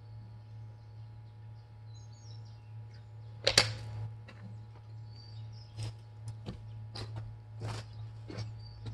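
A handful of sharp knocks over a steady low hum, the loudest about three and a half seconds in, with small birds chirping faintly.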